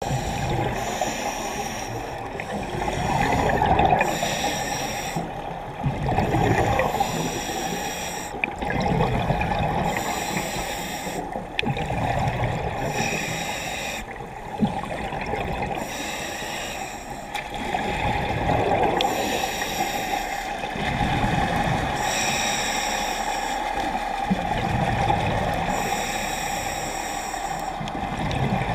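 Scuba regulator breathing heard underwater: a hiss on each inhalation alternating with gurgling bursts of exhaled bubbles, one breath every few seconds.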